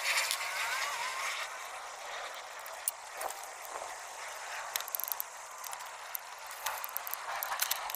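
Scattered light metallic clicks and rattles of a ratchet, socket and extension bar working the starter mounting bolts of a Chevy Cobalt's engine, over a steady hiss. The clicks begin about three seconds in and come more often near the end.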